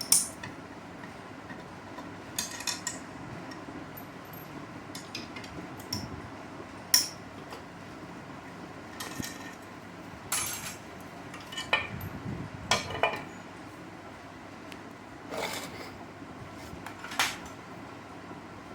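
Scattered sharp metallic clinks and clanks of metal tools or parts being handled, about a dozen strikes spread irregularly. The loudest comes right at the start and another about seven seconds in.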